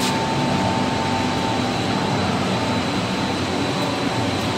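Running food-extrusion production line machinery, most likely the fans and motors of the drying oven: a continuous mechanical roar with a low hum and a thin, steady high whine.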